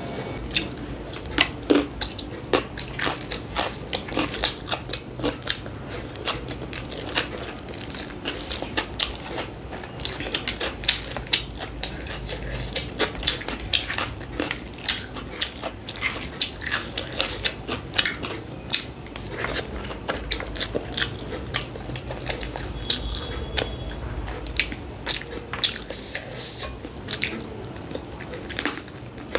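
Close-miked eating: a person biting and chewing food, with many irregular sharp crunches.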